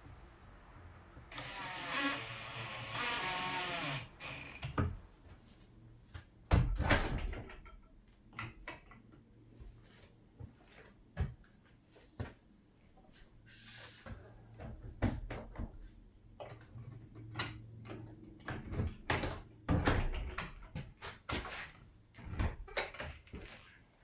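A power drill runs for about three seconds near the start, then comes a string of scattered knocks and clicks as a door frame is adjusted by hand.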